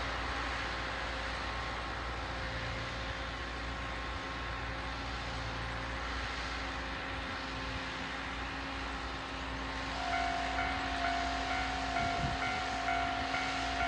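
Electric train approaching out of view: steady rushing noise with a low hum, joined about ten seconds in by a steady higher whine with a faint pulsing ring above it.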